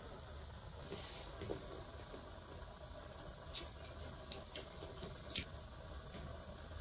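A few light clicks and taps as a domino is handled by hand and set down on the floor, with one sharper click about five seconds in, over faint steady hiss.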